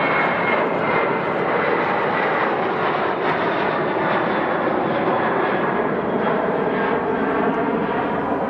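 Jet airliner passing, its engines a loud, steady rush with a faint whine that drops slightly in pitch.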